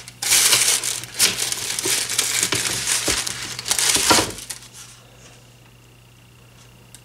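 Packaging crinkling and rustling as fan blades are handled and unwrapped, for about four and a half seconds. After that only a faint steady hum remains.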